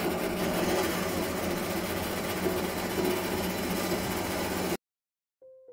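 Hafco Metalmaster metal-cutting bandsaw running steadily with a low motor hum, its blade cutting aluminium square tube. The sound cuts off abruptly near the end, and soft piano music begins just after.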